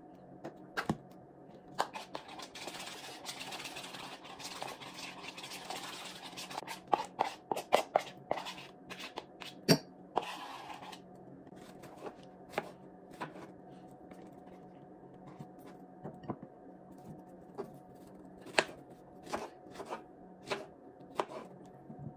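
Kitchen food preparation: a busy stretch of scraping and clattering from utensils and packaging for the first half. Then a kitchen knife slices strawberries, tapping on the cutting board about once a second.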